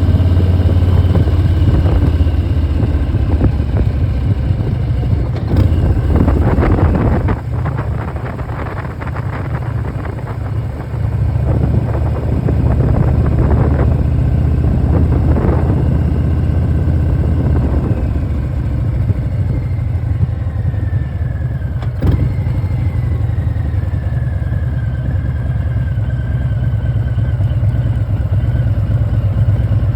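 Harley-Davidson Milwaukee-Eight V-twin running under way through a Vance & Hines Big Radius exhaust, with a thin high whine above the engine note. The whine falls steadily in pitch over the second half. The engine note drops for a few seconds early on, and there are two sharp clicks.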